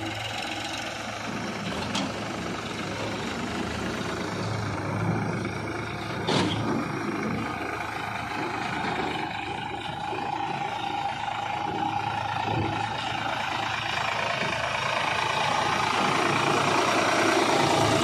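Sonalika tractor's diesel engine running as it pulls a trolley loaded with soil, growing louder near the end as it comes close. Two sharp knocks stand out, about 2 and 6 seconds in.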